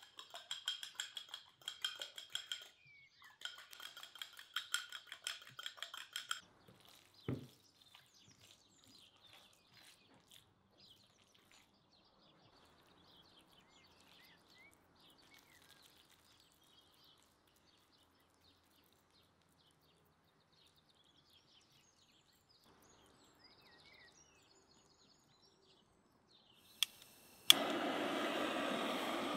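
Fork beating rapidly against a clay bowl, whisking a liquid, in two runs over the first six seconds. Near the end a sharp click, then the steady hiss of a handheld butane blowtorch burning.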